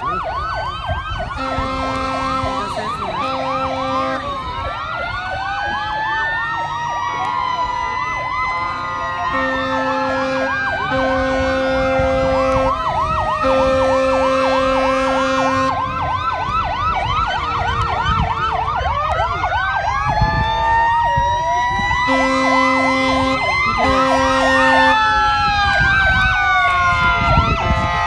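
Several emergency-vehicle sirens sounding at once, slow rising and falling wails overlapping fast repeating yelps. A deep horn blares in groups of two or three long blasts, three times. Growing slightly louder as the vehicles approach.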